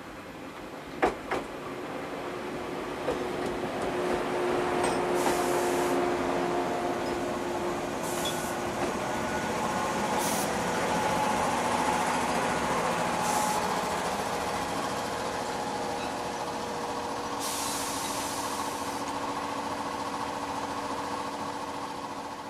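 JR West 115-series electric train running on the station track: wheel-and-rail rumble with a few steady motor tones, growing louder as it comes alongside, then slowly easing off. Two sharp clicks about a second in, and several short bursts of air hiss.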